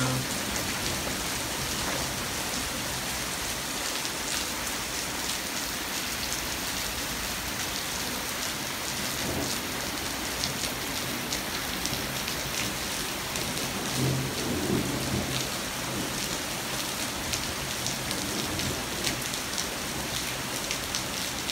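Torrential downpour during a night thunderstorm: heavy rain pouring steadily and splattering on surfaces, with a brief swell in loudness about fourteen seconds in.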